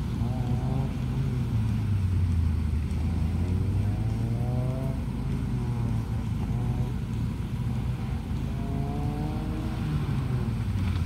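A car engine revving up and easing off several times as it is driven through a tight cone course, over a steady low engine rumble.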